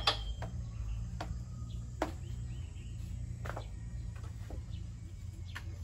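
About five sharp knocks, a second or so apart, over a steady low rumble, with faint insect and bird calls.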